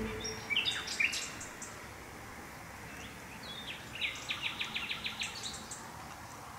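Songbirds singing: a few short chirps in the first second or two, then a quick run of repeated notes about four seconds in, over faint steady background noise.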